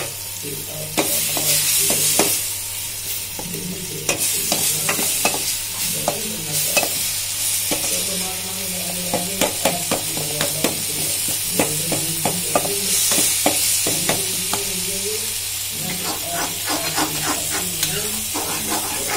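Chopped onions, tomatoes and green chillies sizzling in oil in a steel pan while a metal spoon stirs them, with frequent sharp clicks and scrapes of the spoon against the pan over a steady frying hiss.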